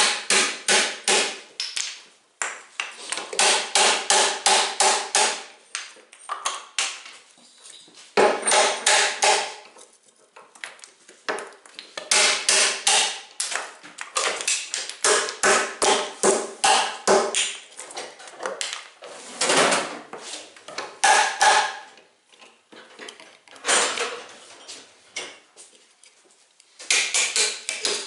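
Claw hammer striking a wood chisel to chop the waste out of a kerfed lap joint in a wooden beam. The blows come in quick runs of about three to four a second with short pauses between, and each blow rings.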